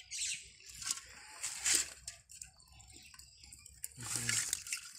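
Small wet fish flapping and sliding against each other in a metal pot as it is handled. The pot gives off a few irregular splashy rustles, the loudest about two seconds in.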